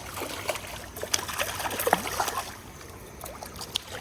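Creek water running and trickling, with scattered short splashes and clicks over the first couple of seconds that then die down.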